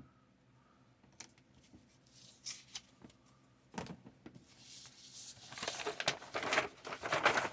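Light, scattered clicks and taps of small wooden model-kit parts being handled, then from about five and a half seconds in a steady rustling and crinkling, as of paper or packaging being handled.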